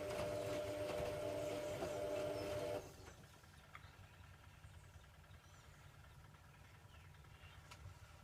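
Hoover Logic A3790 washing machine running with a steady mechanical hum early in its wash cycle, which cuts off abruptly about three seconds in. A faint low hum continues after it.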